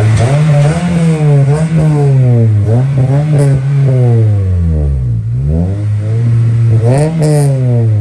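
Acura RSX's 2.0-litre K-series four-cylinder revved again and again through its Greddy aftermarket exhaust and intake, the pitch climbing and falling several times. It drops back toward idle about five seconds in, then rises for one more rev near the end.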